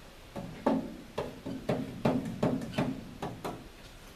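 A quick series of light knocks and clicks, about two a second.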